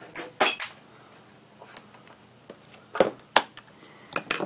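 A handful of short, sharp clicks and knocks as a screwdriver works the rubber grip of a Ruger GP100 revolver loose and the revolver and tool are handled on a wooden workbench.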